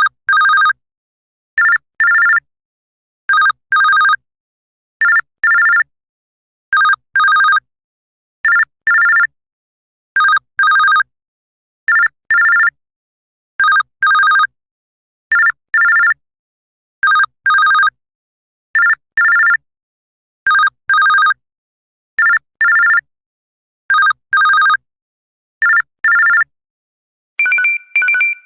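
LG Optimus G E975 ringtone in the style of a telephone ring: short electronic double rings, two quick rings about every 1.7 seconds, repeated evenly. Near the end a different two-tone ringtone starts.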